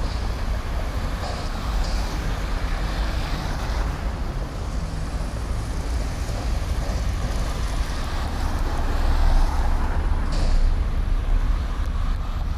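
Road traffic passing on a busy city bridge: a steady rumble of cars and other motor vehicles, with a short hiss about ten seconds in.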